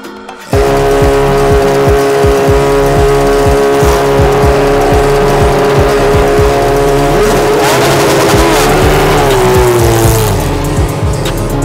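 Formula 1 car engines at high revs, cutting in abruptly about half a second in. A loud, steady high note holds for several seconds, then several engine pitches rise and waver against each other about seven seconds in.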